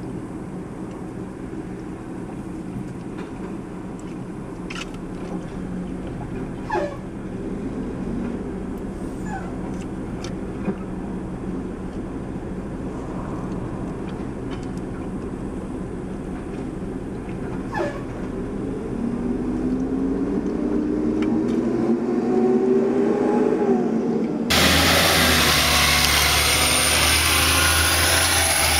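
Mack automated side-loader garbage truck running while its arm lifts and empties a wheeled cart, with a few sharp knocks along the way, and the engine revving up for several seconds near the end. Then it cuts abruptly to a louder, noisier garbage truck engine.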